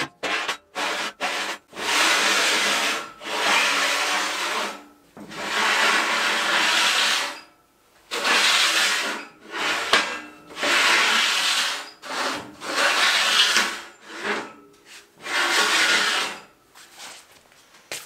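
Long square steel tube sliding back and forth over a steel stand, steel scraping on steel in about eight long rasping strokes of one to two seconds each, after a few short clanks at the start.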